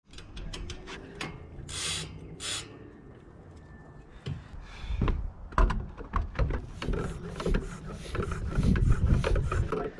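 Clicks and knocks of a BMX wheel being handled. Then, from about six and a half seconds in, a floor pump worked in quick, even strokes, each with a hiss of air, growing louder near the end as a repaired flat tyre is pumped up to high pressure.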